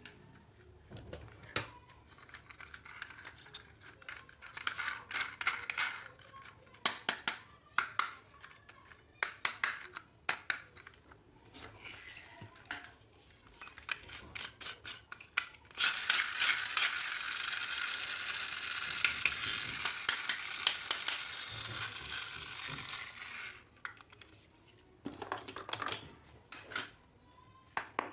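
Hands handling toys and packaging: scattered clicks, taps and crackles, with a steady noisy rustle lasting about seven seconds in the middle.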